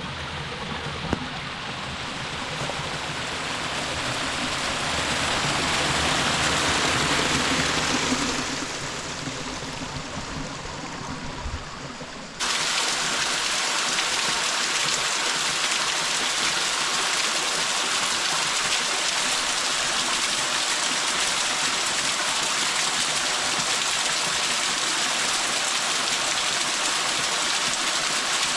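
Rushing water of a river or waterfall, a steady hiss that swells and eases. About twelve seconds in it cuts abruptly to a steadier, brighter rush of water, with a single click about a second in.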